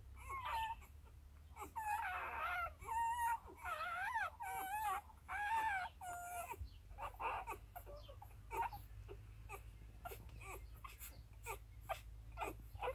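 Newborn puppies squealing and whimpering in short, high, wavering cries for about the first half, then a run of quick soft clicks and smacks with a few small squeaks as they suckle, over a low steady hum.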